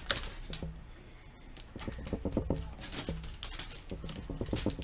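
Kitchen knife slicing a lemon thin, the blade cutting through and tapping down on the board in quick runs of light clicks, with pauses between the runs.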